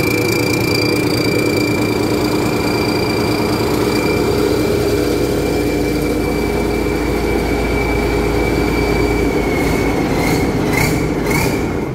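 Rice combine harvester's diesel engine running steadily, a high steady whine over its lower drone. About ten seconds in, the whine wavers briefly.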